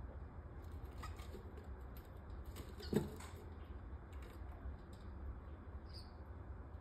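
Splendid parakeets' feet scratching and clicking on a wooden nest box, with one sharper knock about three seconds in as a bird lands on the box. A brief faint chirp comes near the end.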